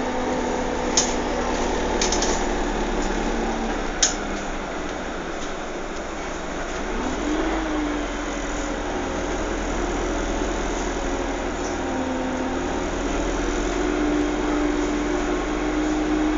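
Steady hum of a vehicle's engine or motor, its pitch slowly rising and falling, with a few sharp clicks in the first few seconds.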